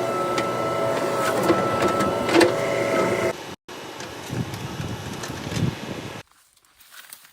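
JCB 3DX backhoe loader's engine and hydraulics running, with a steady whine over the engine. It cuts off abruptly about three and a half seconds in to a quieter run of the machine, then drops to faint scuffing near the end.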